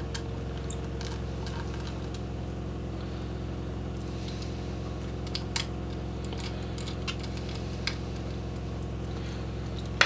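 Small Phillips screwdriver working the screws out of the edges of a 2.5-inch laptop hard drive and its metal caddy: a few scattered small metallic clicks and ticks, over a steady low hum.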